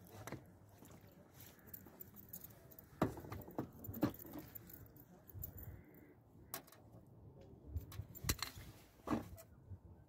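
Scattered light clicks and knocks of fishing tackle being handled, loudest about three and four seconds in and again around eight and nine seconds.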